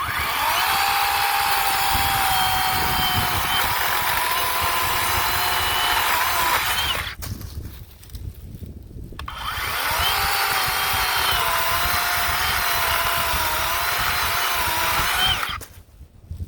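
Worx 40V cordless electric chainsaw cutting wood in two runs of about six to seven seconds. Each run is a motor whine that rises as it spins up, sags slowly in pitch as the chain bites, and stops at once when the trigger is released.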